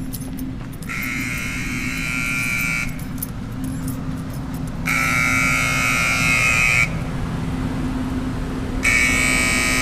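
Superb grain dryer's alarm buzzer sounding in three steady two-second blasts, about every four seconds, over a steady low hum. The alarm signals a pilot failure and low-airflow fault.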